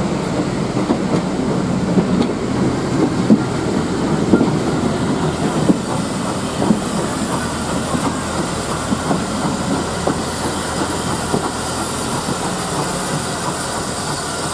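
Moving heritage steam train: carriage wheels clicking and rumbling steadily over rail joints. A hiss of steam grows near the end as an oncoming saddle tank locomotive draws near.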